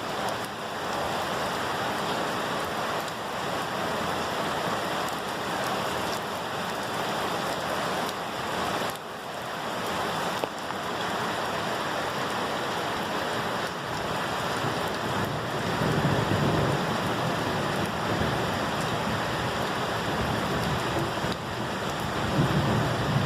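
Steady heavy rainfall, an even hiss of drops. Low rumbles of thunder rise under it about two-thirds of the way through and again near the end.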